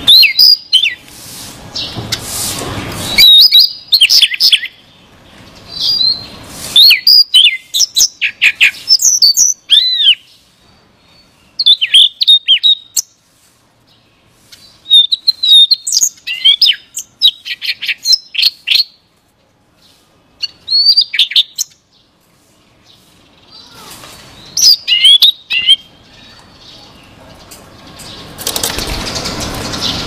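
Male Siberian rubythroat singing: bursts of rapid, varied whistled notes with quick up-and-down glides, delivered in short phrases broken by pauses of a second or more. A broad rushing noise sits under the song at the start and again near the end.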